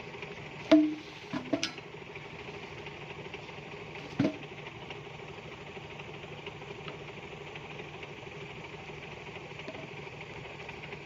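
Truck engine running steadily at an even pitch. Over it come a few sharp, loud clicks: the loudest under a second in, two close together at about one and a half seconds, and one more around four seconds.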